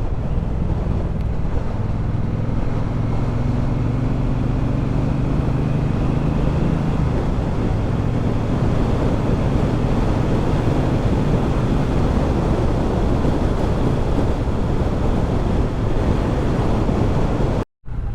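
Triumph Bobber's 1200 cc parallel-twin engine running under way, mixed with steady wind rush on the microphone. The engine note rises a few seconds in, then sinks back into the wind noise. The sound cuts out for a moment near the end.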